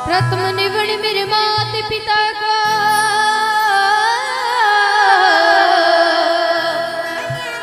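Rajasthani devotional bhajan music: a long melodic line with a wavering vibrato glides slowly downward over a steady drone. The drum beat drops out a couple of seconds in and comes back near the end.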